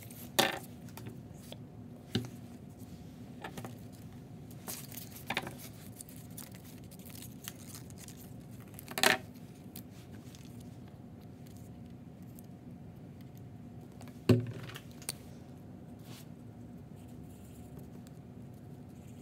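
Quiet paper-craft handling: paper being snipped with small scissors and moved about on a tabletop, heard as a handful of scattered clicks and taps, the loudest about fourteen seconds in, over a steady low hum.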